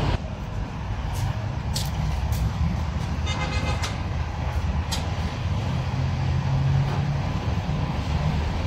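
A steady low engine-like rumble throughout, with a few sharp clicks and knocks and a brief squeak a little after three seconds in.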